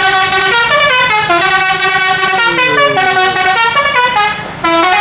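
A tourist bus's 'telolet' multi-tone musical air horn playing a quick stepping tune, note after note, with a short break near the end before the tune picks up again.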